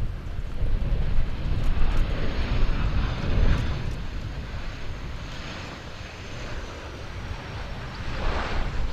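Four-engine BAe 146-family jet on final approach, its turbofans giving a steady rushing hiss with a faint high whine. Heavy wind rumble on the microphone is loudest in the first half.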